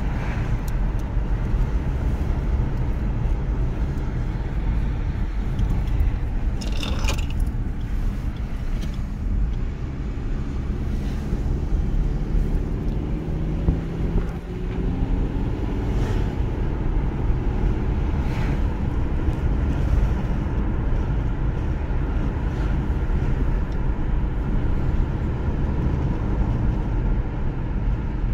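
Steady road and engine noise heard inside a moving car's cabin, a low rumble of tyres and engine. A few light clicks are scattered through it, and a short rising-and-falling hum passes about halfway through.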